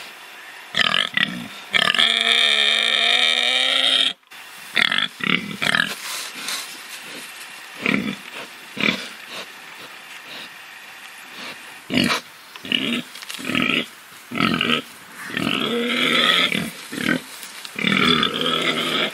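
Domestic pig grunting in many short bursts, with a longer pitched call lasting about two seconds near the start. The sound cuts off suddenly about four seconds in, then the grunts resume and run together into longer calls near the end.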